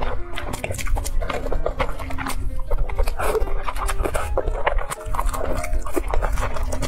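Close-miked eating sounds: a woman chewing and slurping spicy noodles, with many quick wet smacks and clicks from her mouth.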